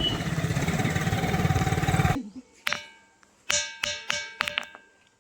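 A loud, dense pulsing noise cuts off abruptly about two seconds in. Then a ringing stone is struck about seven times with a hard object, each strike ringing on in clear metallic tones like struck iron.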